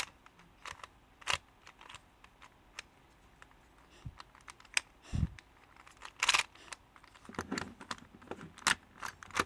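Ghost Cube twisty puzzle being turned by hand: irregular plastic clicks and clacks as its layers turn.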